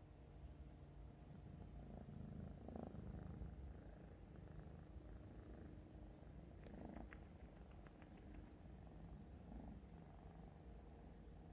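A kitten purring faintly and steadily, with a few soft clicks about seven seconds in.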